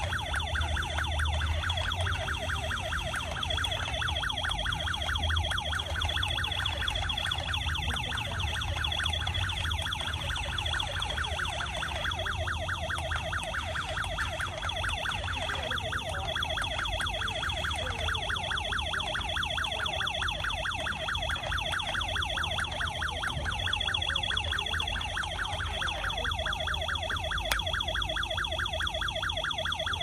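Electronic police-siren sound effect from a toy remote-control police car's speaker: a fast, continuous warble with a steady high tone over it and a low hum underneath.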